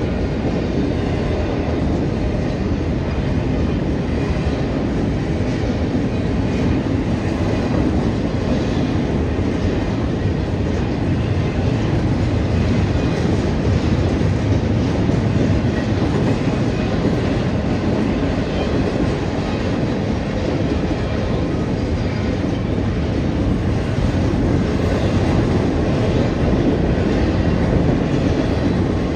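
Union Pacific intermodal freight train's double-stack container cars rolling past, wheels running on the rails with a steady low noise that keeps on without a break.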